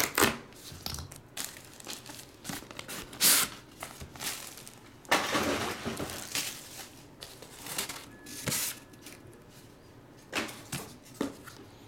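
Cardboard box and packaging being handled as a trading card box is opened: intermittent rustling, scraping and crinkling, with louder bursts about three seconds in and again around five to six seconds in.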